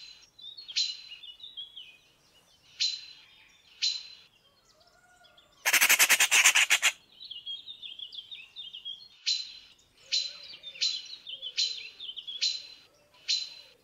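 Eurasian magpies calling: a series of short, harsh calls with softer twittering between them. About six seconds in comes a loud, rattling chatter lasting just over a second.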